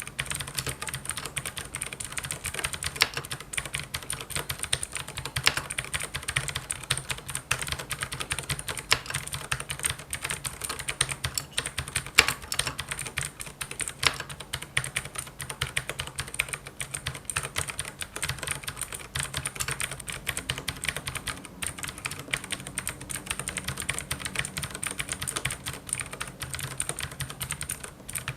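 Ducky One 3 TKL mechanical keyboard with clicky Cherry MX Blue switches being typed on continuously: rapid keystrokes, with an occasional louder single stroke.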